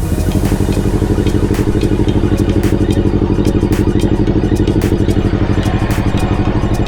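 Yamaha R6's stock-exhaust inline-four engine idling steadily, with an even pulse.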